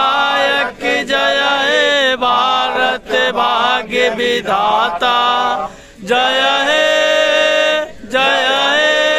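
A man singing a slow Indian patriotic song through a handheld megaphone, with long held notes and two short breaks for breath.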